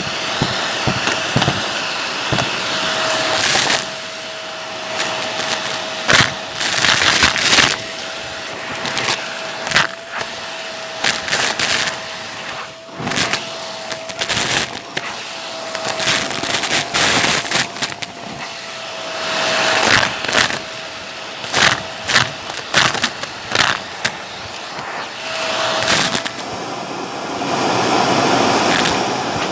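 Vacuum cleaner running with a steady whine while sucking up crunchy debris, which crackles and clicks in quick irregular bursts as it is pulled in.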